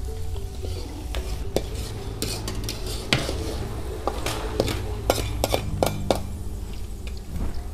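Metal spatula stirring fried peanuts in a perforated metal frying strainer inside a metal wok: a run of sharp metal clinks and scrapes, with the peanuts rattling against the mesh.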